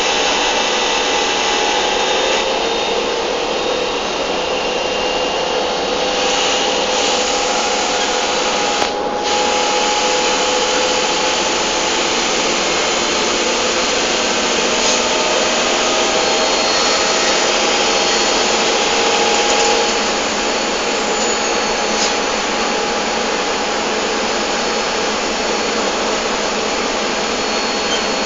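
S-Bahn train running along the track, heard from the driver's cab: a steady rolling and running-gear noise with a faint whine, and a brief dropout about nine seconds in.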